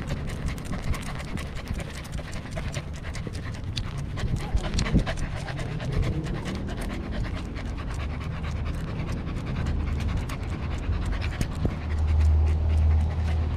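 Corgi panting right at a collar-mounted action camera. Many small sharp clicks and rubbing noises come through along with it, and a louder low rumble swells near the end.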